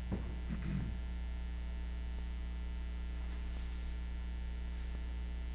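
Steady electrical mains hum: a constant low buzz with a stack of even overtones, with a few faint brief sounds in the first second.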